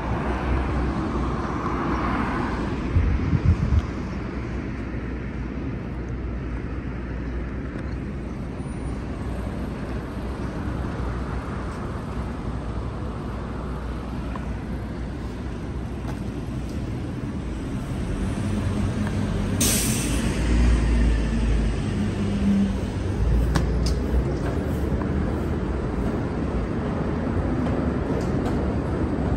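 City street traffic: a steady rumble of passing cars and buses, with low thumps about three seconds in and a short sharp hiss about two-thirds of the way through.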